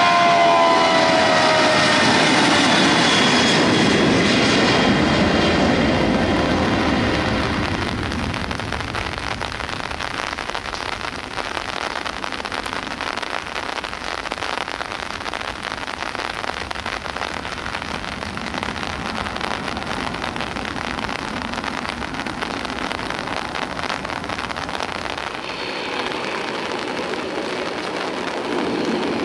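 A large jet airliner passing close, its engine whine falling in pitch as it goes by and dying away over the first several seconds, leaving the steady hiss of heavy rain.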